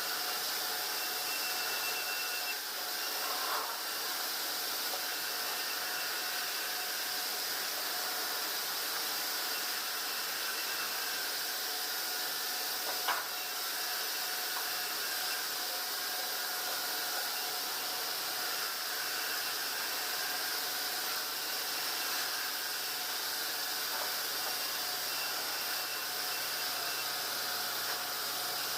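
Steady hiss and hum of a sawmill band saw and its machinery running, with one sharp click about halfway through.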